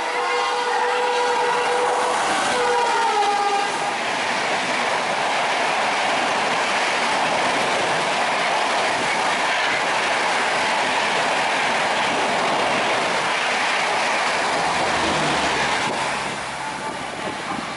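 Electric locomotive horn sounding a held blast that dips in pitch and ends about three and a half seconds in, followed by the steady rush and clatter of a passenger express train passing at speed, easing off near the end.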